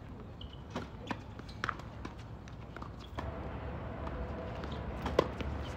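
Scattered sharp knocks of tennis balls bouncing and being hit on an outdoor hard court, mixed with footsteps; the loudest knock comes about five seconds in. A low steady hum joins about three seconds in.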